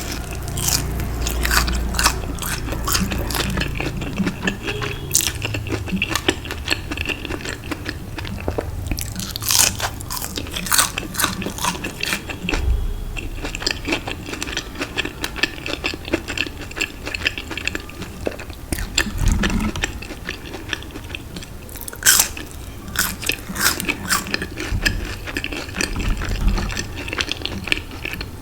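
Close-miked eating sounds: a person biting and chewing food, with many sharp crunches following one after another.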